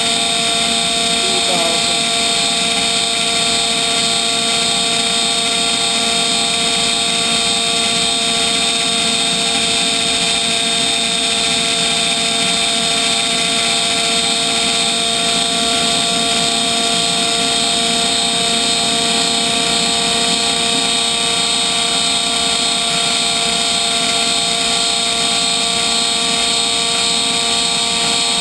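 Turbocharger-based homemade gas turbine with a nylon reduction gear running steadily at speed: a high whine of several steady tones over a dense rushing noise.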